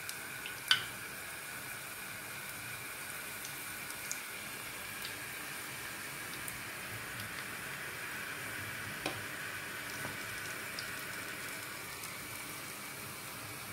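Small gram-flour (besan) pakoris deep-frying in hot oil in an iron karahi: a steady sizzle with scattered small pops. A sharp click sounds about a second in.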